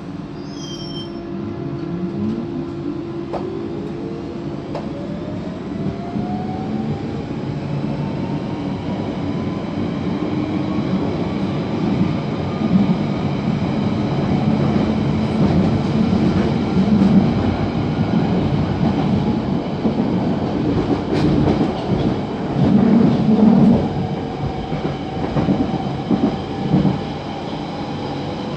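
London Underground Central Line 1992 Stock train pulling away from a station, heard from inside the carriage. The traction motor whine rises steadily in pitch as the train accelerates, over a rumble of wheels on track that grows louder, with scattered clacks from the rails.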